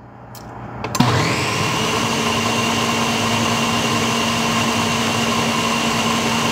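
Countertop blender switching on about a second in and running steadily at high speed, blending watermelon into a slush.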